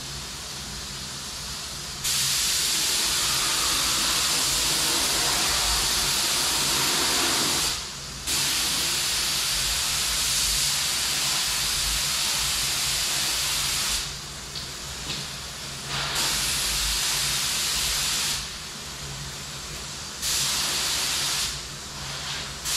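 Compressed-air spray gun hissing as it sprays coating onto truck wheels, triggered in four long passes of a few seconds each, with a steady lower hiss and hum between them.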